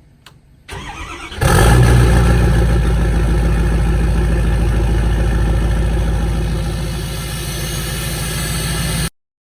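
An engine cranks briefly and catches about a second and a half in, then runs steadily. The sound cuts off abruptly near the end.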